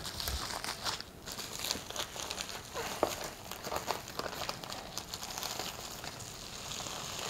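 Clear plastic bag crinkling and rustling in irregular small crackles as it is handled and pulled over a CGC graded comic slab.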